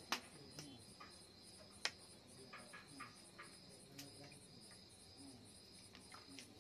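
Crickets chirping steadily in a fast pulsing rhythm, about four pulses a second, with a few sharp clicks.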